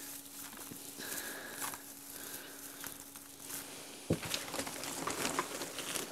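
Dry compressed alfalfa hay rustling and crackling as it is handled by hand in a bucket, with a single knock about four seconds in. A faint steady hum runs underneath.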